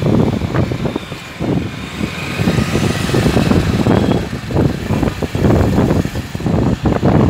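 Road traffic noise from passing cars, with heavy wind rumble buffeting the microphone as it moves along the road.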